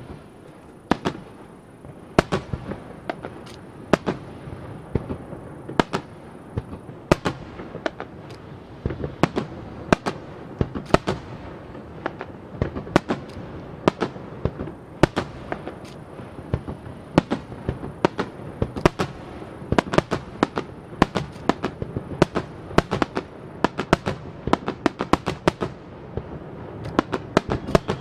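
Starmine fireworks barrage: a rapid, irregular string of aerial shell bursts, several sharp bangs a second, over a continuous rumble.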